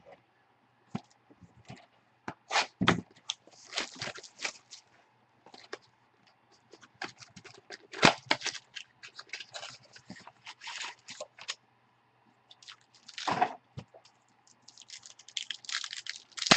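A box of football trading cards and its packs being opened by hand: irregular crinkling, tearing and rustling of wrappers and cardboard, with a few short pauses.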